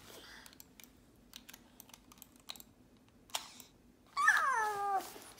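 Small plastic clicks and taps of a computer mouse being pressed and handled. About four seconds in, one loud, high cry falls steadily in pitch and lasts under a second.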